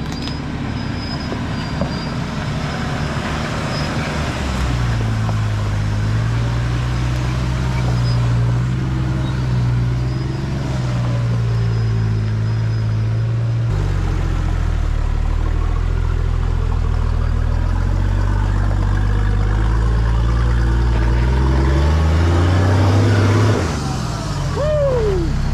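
Four-wheel-drive's diesel engine pulling at low revs along a dirt track, the revs stepping down about halfway and climbing near the end before dropping off. A short falling squeak near the end.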